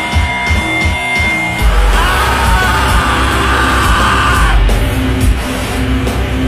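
Loud live breakcore-metal electronic music, heavy and distorted. The bass drops in harder about one and a half seconds in, with a shouted vocal over it for about three seconds.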